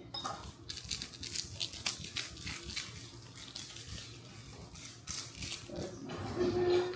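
A scattered run of small clicks and rustles from kitchen items being picked up and handled on a countertop, busiest in the first couple of seconds and again near five seconds. A short steady tone sounds near the end.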